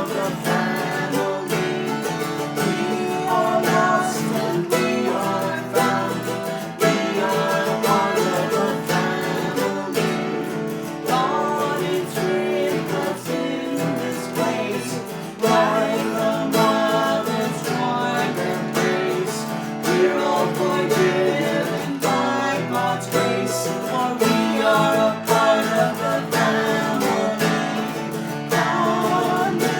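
Hymn tune played as instrumental accompaniment on a plucked string instrument, notes picked and strummed at a steady pace.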